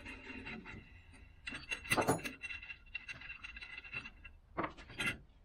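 Metal clinking and scraping as the top cover of a Polaris RZR 1000 primary clutch is worked up and off the threaded rod of a clutch compression tool. The knocks are loudest about two seconds in, with a few sharper clicks near the end.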